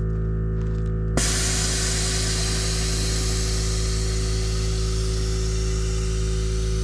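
Air-ride suspension venting air: a sudden loud hiss of air let out of the airbags through the valves starts about a second in and runs steadily as the car lowers, over a steady low hum.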